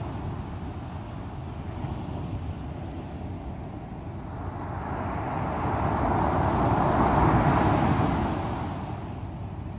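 Strong sea waves breaking on the shore: a steady low rumble of surf, with one wave surging up through the middle and washing away near the end.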